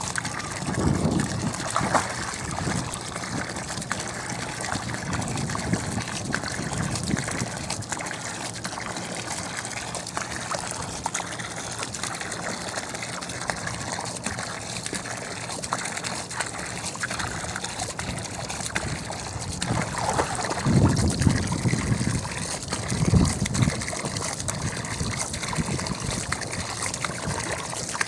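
Garden hose spraying a steady stream of water into a plastic paddling pool, while a dog wades in the pool and bites at the stream. There are louder bursts of splashing about a second in and again around 20 to 24 seconds.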